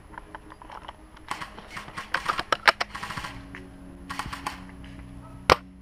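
Rustling and quick runs of small clicks from gear and an airsoft rifle being handled, with one sharp click near the end. Quiet background music with steady low notes comes in partway through.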